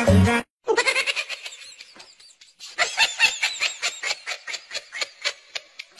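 A rapid run of short, high, pitched vocal calls, about six a second, in two stretches with a brief lull about two seconds in. It follows a dance track that cuts off abruptly at the very start.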